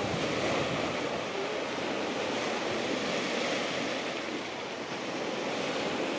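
Sea surf washing steadily onto the shore, with wind buffeting the microphone.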